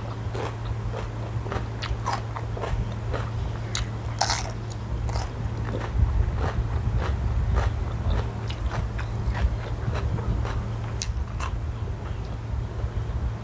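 Close-miked eating: repeated crisp, crunchy bites and chewing, irregular clicks throughout, over a steady low hum.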